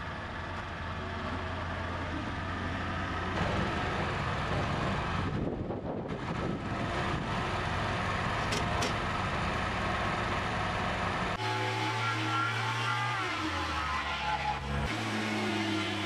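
Engines running steadily: an old farm tractor carrying a log on its front loader, then the homemade sawmill, driven by a Datsun 120Y's 1200cc four-cylinder engine. Music comes in over it about two-thirds of the way through.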